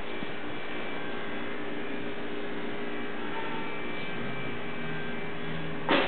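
Steady background hum with several faint steady tones under it, and one short, sharp sound near the end.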